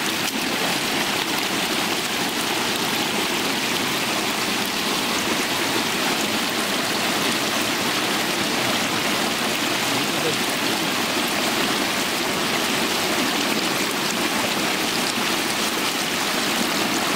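Water rushing and splashing steadily through a bamboo-slat fish trap as eels and small fish thrash in it.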